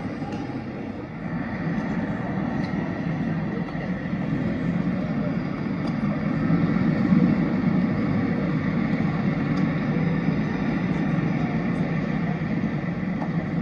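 Steady low hum of city traffic, a little louder about halfway through.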